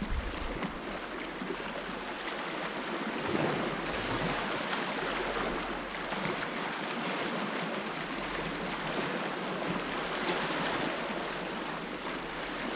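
Sea surf washing against a rocky shore: a steady hiss of water that swells a little now and then.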